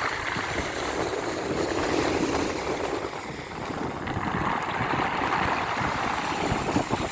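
Sea waves washing over a pebble shore and dragging the stones back with them, a continuous noise of water and stones that ebbs briefly about three and a half seconds in and swells again.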